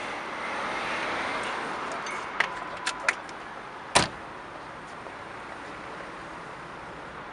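Street background noise with a few sharp clicks, then one loud, short thump about four seconds in. No engine is running yet.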